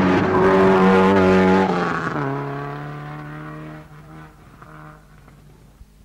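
Rally car engine at full throttle as the car passes close. Its note drops in pitch about two seconds in, then fades away as the car goes off into the distance.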